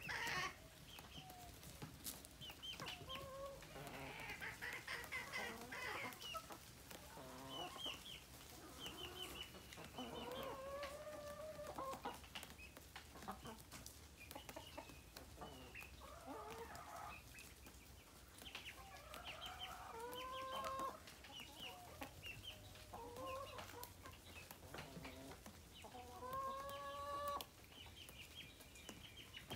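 Backyard chickens clucking and calling as they forage, short calls scattered throughout, with longer bending calls about ten, twenty and twenty-seven seconds in.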